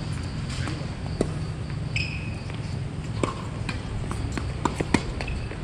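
Tennis ball being struck and bouncing on a hard court: scattered sharp knocks, with three quick ones close together near the end. A brief shoe squeak about two seconds in, over a steady low rumble.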